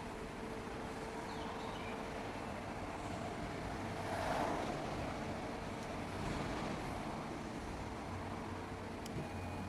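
Mori Seiki SL-3A CNC lathe running on a test run: a steady machine hum with a steady tone through the first half, and a brief louder swell about four seconds in, with a smaller one a couple of seconds later.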